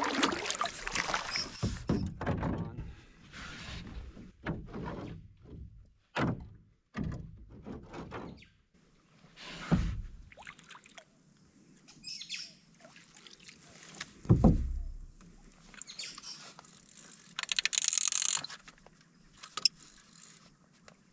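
Irregular splashing and knocking in a canoe while a hooked trevally is played on rod and reel: water sloshing, paddle and gear knocking on the hull, two heavy low thumps in the middle, and a short hissing burst near the end.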